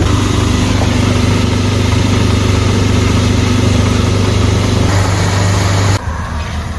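Ballast-fluid transfer pump running steadily with a low hum while it pumps fluid into a tractor tire, then shutting off suddenly about six seconds in.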